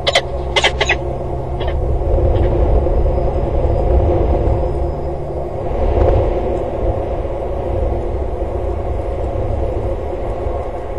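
A few short, sharp peregrine falcon calls in the first second, over a steady low rumble that swells for a few seconds in the middle and carries on throughout.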